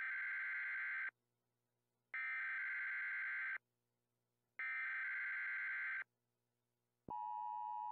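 Electronic countdown beeps: three buzzy tones of about a second and a half each, evenly spaced, then a steadier, lower tone that starts near the end and holds.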